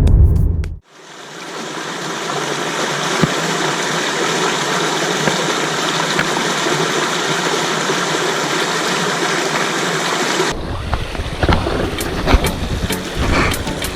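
A mountain creek rushing steadily, fading in just after music cuts out about a second in. From about ten seconds in, a low uneven rumble and scattered clicks join the water.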